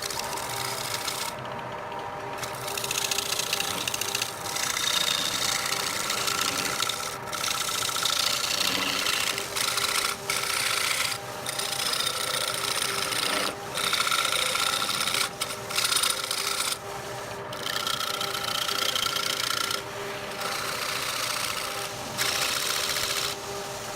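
Wood lathe running with a steady motor hum while a tool rasps against the spinning wood in repeated passes of one to a few seconds, with short breaks between them.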